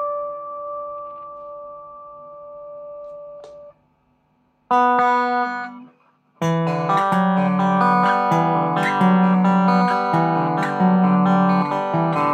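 Electric guitar, a Chinese Gibson Flying-V replica fitted with Ibanez QM1/QM2 pickups, being played: a held chord rings and fades and is damped a little before four seconds in, a short chord sounds about a second later, and from about six seconds in the playing runs on continuously over low bass notes.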